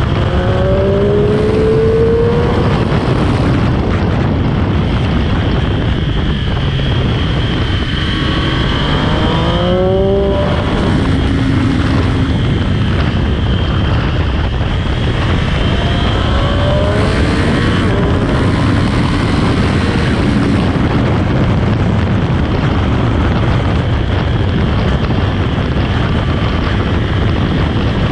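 Sport motorcycle engine at speed on a race track, heard onboard with heavy wind rush; it winds up in rising sweeps under hard acceleration four times, between steadier stretches.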